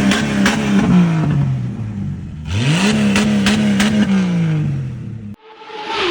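Jeep engine revved twice, each rev climbing in pitch, holding, then easing off, with sharp crackles and pops from the exhaust. It cuts off abruptly near the end and gives way to a short fading hiss with a steady tone, like a transition sound effect.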